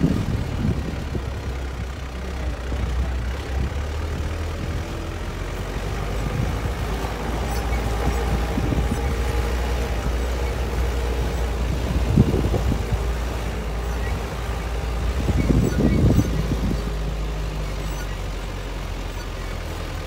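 A 4x4 jeep's engine running as it drives slowly over a sandy track: a steady low drone, with a couple of louder jolts from the ride.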